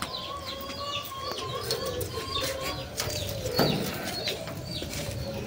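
Birds chirping and calling, many short chirps over a steady held note.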